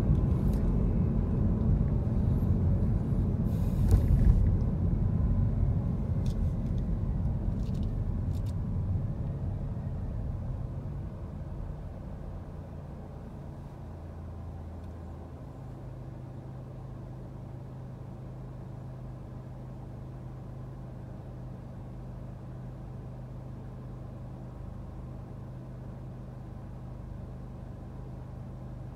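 Car running along a street, a low rumble of engine and tyres that fades over the first ten seconds or so as the car slows to a stop, with a few sharp clicks or knocks in the first eight seconds. Then the engine idles with a steady low hum.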